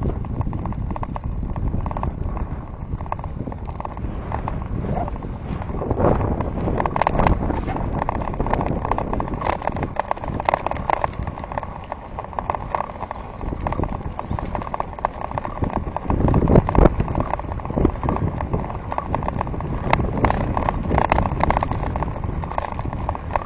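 Bicycle ridden along a paved path: steady rumble of the tyres with irregular rattling and clatter from the bike and handlebar-mounted camera, a little louder for a moment in the second half.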